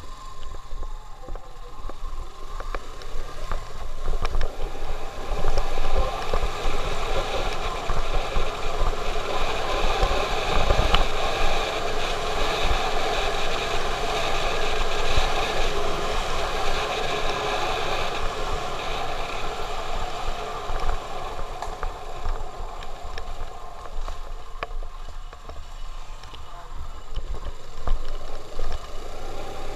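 Wind buffeting the microphone of a camera on a moving motorcycle, over the low running of the bike's engine and its tyres on a rough concrete road. The rush is loudest through the middle as the bike picks up speed.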